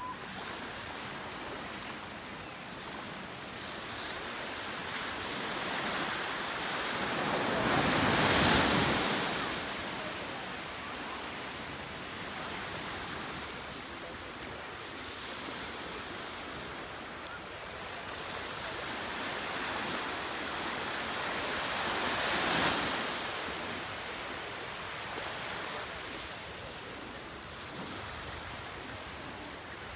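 Ocean surf: a steady wash of waves with two bigger waves building and breaking, loudest about eight seconds in and again about twenty-two seconds in.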